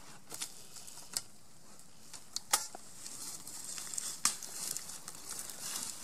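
Soft rustling with a few sharp clicks, about one every second or so, over a steady high hiss.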